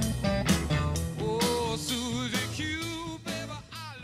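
Soundtrack music: a song with singing over a drum beat, fading out toward the end.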